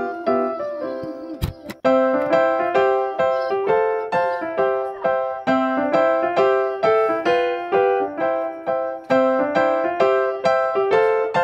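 Background music played on a keyboard, notes struck in a steady, even rhythm, with a brief click and a short break about one and a half seconds in.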